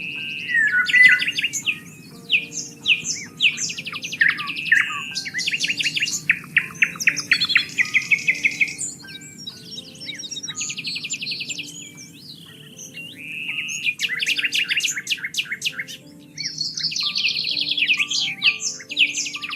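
Several birds chirping and singing, with overlapping calls and rapid trills that thin out briefly about halfway through. A soft, steady low tone sits underneath.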